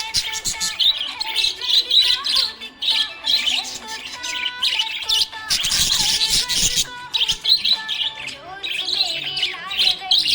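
Budgerigar chirping and warbling in a fast, continuous stream of chatter, with brief pauses.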